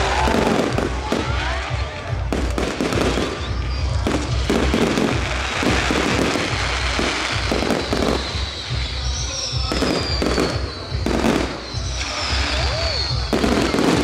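Fireworks display: repeated irregular bangs and crackling bursts, with a high falling whistle about two-thirds of the way through. Music plays underneath.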